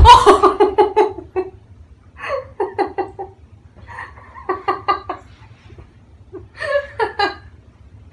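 A fit of laughter in four bouts of rapid, high-pitched ha-ha pulses, breaking up a read-aloud line; a sharp thump sounds right at the start.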